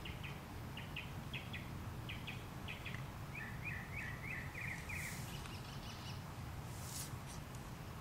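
A bird chirping in short paired notes, repeated every half second or so, then a quick run of notes about halfway through, over a steady low background noise. Two brief rustles come in the second half.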